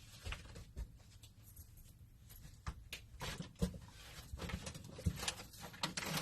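Rustling of packaging with scattered light clicks and knocks as small items are handled, the rustling growing busier about halfway through.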